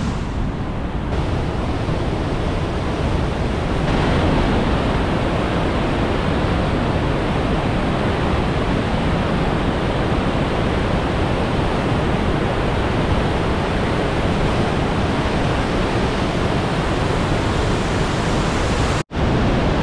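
Big waterfall rushing steadily at close range, a dense unbroken roar of falling water, said to carry about 185 cubic metres a second. The sound drops out for an instant just before the end.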